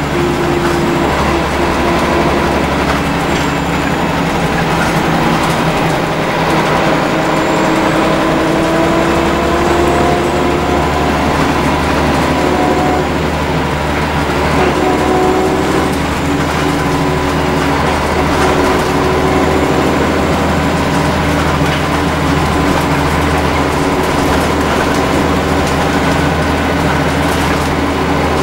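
Scania L94UB bus under way, heard from its rear seats: the rear-mounted nine-litre five-cylinder diesel runs with a steady drone. Several tones in it drift slowly up and down with road speed, over constant road and body noise.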